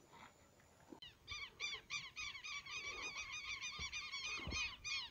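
A bird calling in a fast run of harsh, repeated notes, about five a second, starting about a second in, with a few soft low thumps underneath.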